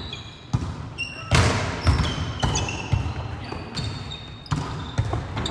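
A volleyball is struck again and again in a passing-and-setting drill, about every half second to second, with sharp slaps that echo around a large sports hall. Short high squeaks from players' shoes on the hardwood floor come between the hits.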